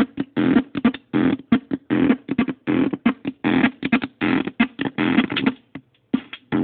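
Korg Monotribe analogue synth pattern played through a circuit-bent Yamaha computer speaker, crunchy and heavily distorted, in choppy rhythmic bursts with a brief drop-out near the end.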